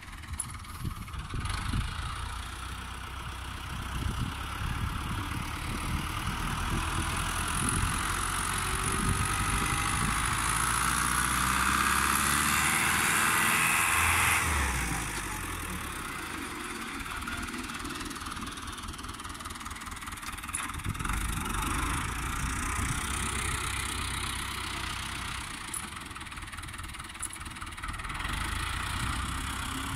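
New Holland (Fiat) 640 tractor's diesel engine running as it works a front blade through sand, getting louder for several seconds as it climbs a sand mound, then dropping back suddenly about halfway through.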